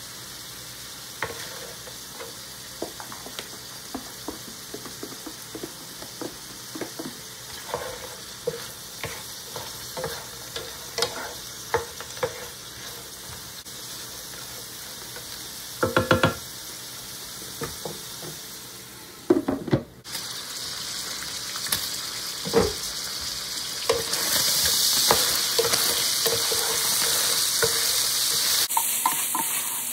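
Diced lamb sizzling in a Presto electric skillet now that most of its cooking water has boiled off, with a wooden spoon stirring and scraping the pan in scattered knocks. The sizzle grows louder in the last few seconds.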